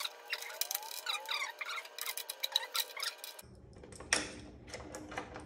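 Small metal clicks and taps as a metal clamp is fitted into a T-track and snugged by hand, left short of fully tight. There is a quick run of clicks for the first few seconds, then a few separate clicks about four seconds in.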